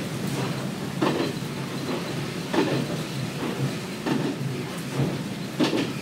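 Kominato Railway KiHa 200 diesel railcar running, heard from inside the car: a steady low drone under sharp clacks of the wheels over rail joints, about half a dozen knocks at uneven spacing.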